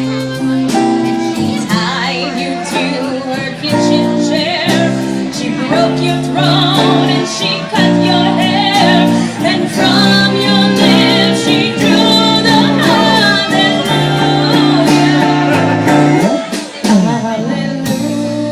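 A live song: singing voices with guitar accompaniment, playing steadily.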